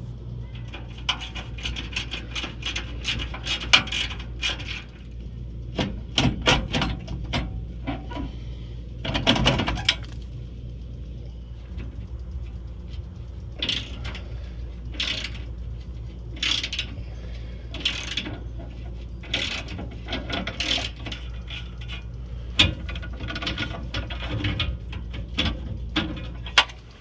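Hand tools working on a steel RV stabilizer jack: irregular metal clicks, ratcheting and clanks as its crank and mounting bolts are turned, over a steady low hum.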